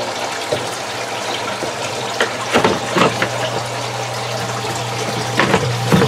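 Water running and splashing steadily through a Dutch bucket hydroponic system as its submersible pump circulates it into the buckets and it drains back to the basin. A steady low hum runs underneath, and there are several short plastic knocks as a tote lid is handled.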